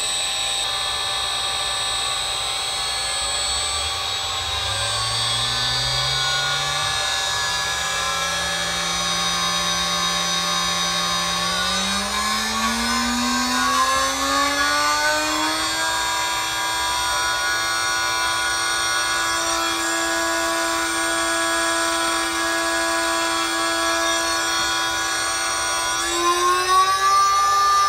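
DIY CNC router spindle motor speeding up in steps toward its 24,000 RPM top speed. Its whine starts low about four seconds in and climbs, holds, climbs again around twelve seconds, then runs steady before stepping up once more near the end. A steady high-pitched whine sits over it throughout.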